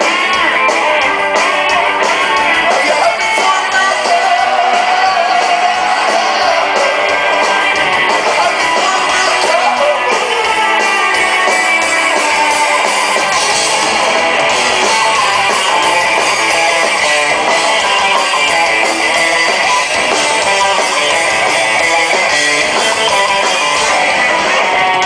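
Rock band playing live, with loud strummed electric guitars over bass and drums, continuous throughout.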